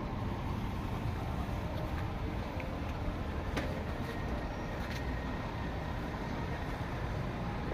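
Steady low rumble of outdoor background noise, with a couple of faint clicks around the middle.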